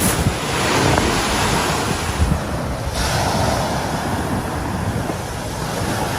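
Sea surf washing onto a shingle beach, with wind buffeting the microphone in a steady low rumble.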